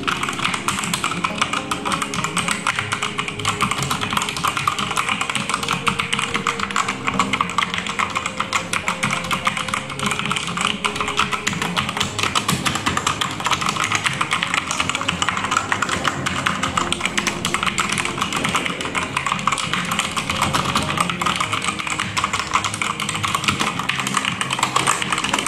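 Fast, continuous typing on a Digital Alliance Meca Elite full-size mechanical keyboard fitted with red (linear) switches, a dense stream of key clicks and keycap taps.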